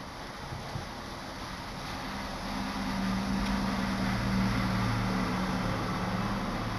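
A motor vehicle's engine hum that swells in about two and a half seconds in and holds steady, over a constant background hiss.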